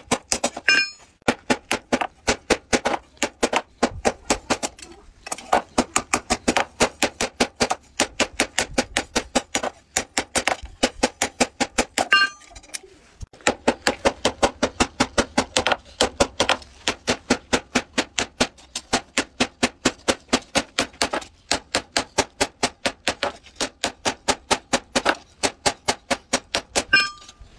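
Hand hammer striking red-hot plow-tooth steel on an anvil in fast, regular runs of blows, several a second, broken by short pauses; now and then a blow leaves the anvil ringing.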